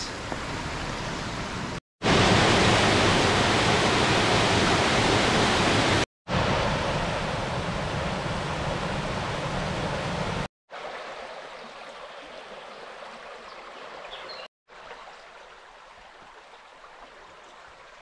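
Rushing stream water cascading through a rocky gorge, a steady hiss, cut into several short clips by brief silent gaps. Loudest from about two to ten seconds in, much quieter in the last clips.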